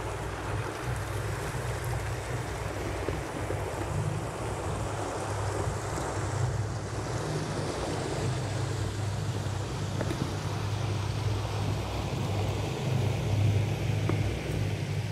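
Steady wind rumble on the microphone over the wash of water around the dock.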